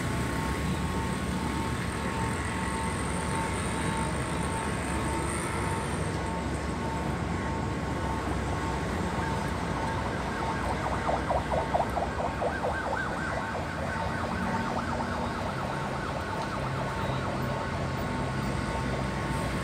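Steady city street traffic noise, with a regularly repeating electronic beep throughout and, around the middle, a few seconds of rapid siren-like warbling that is the loudest sound.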